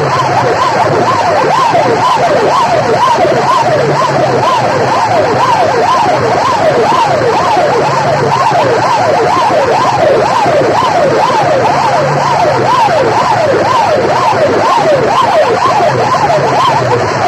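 Several siren wails at once, each sweeping quickly up and down in pitch and overlapping one another, loud and continuous, with a low hum coming and going underneath.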